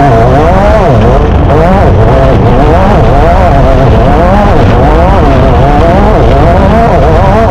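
Off-road race car engine heard loud from on board, its revs swinging up and down every second or so over a constant low rumble.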